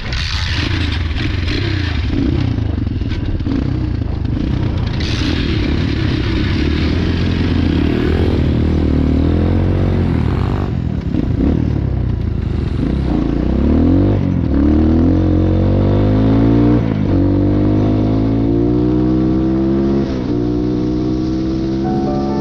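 BRZ X5 motorcycle engine under way, its pitch climbing as it accelerates and dropping back at each gear change, several times over, with rough rattling and wind noise on top.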